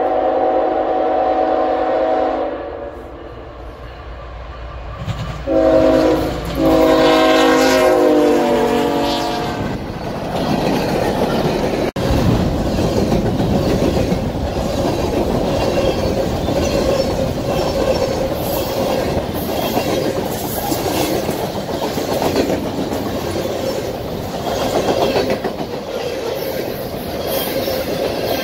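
Freight locomotive horn sounding a chord in a long blast, then a short blast and another long one as the train approaches. From about ten seconds in, the freight cars roll past close by with a steady rumble and the clatter of wheels over the rail joints.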